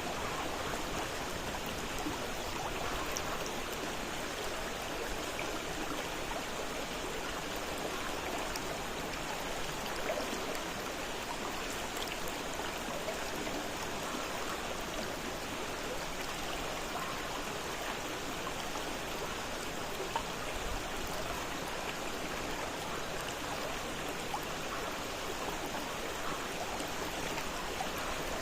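Fast-flowing river water running over rocks, a steady rushing with small splashes and trickles scattered through it.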